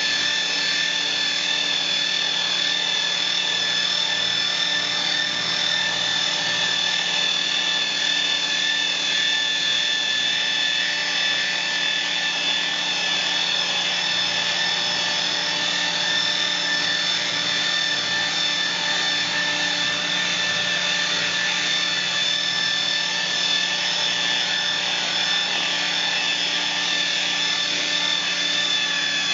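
Makita electric rotary polisher running at a steady speed, its foam polishing pad buffing a solid surface countertop to a gloss finish. The motor gives a constant whine with several steady tones.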